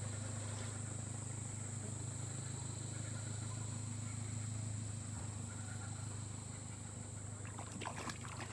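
Outdoor creekside ambience: a steady high-pitched insect drone over a steady low hum, with a few sharp clicks near the end.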